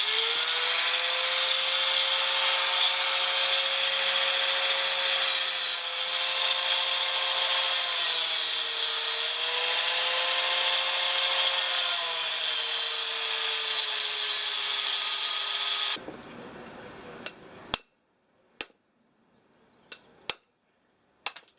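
Cut-off wheel spinning and grinding through the peened-over end of a steel door hinge pin. Its whine sags as the wheel bites into the metal. The tool shuts off about three-quarters of the way in, followed by a few sharp metal clicks.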